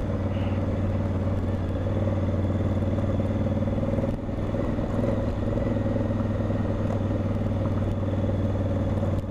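Motorcycle engine running steadily at low speed on a dirt road, heard from the bike itself, easing off briefly about four seconds in.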